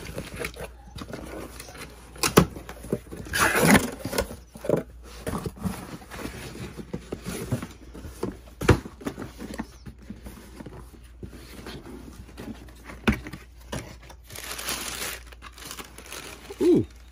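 Cardboard shipping box being cut open and unpacked by hand: scattered knocks, scrapes and rustling of cardboard, with a longer ripping sound about four seconds in. Near the end comes a longer stretch of tissue paper rustling as a pair of shoes is unwrapped in the shoebox.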